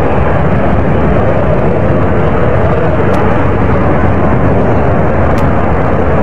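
Jet aircraft engine noise: a loud, steady rushing rumble with no change in pitch or level.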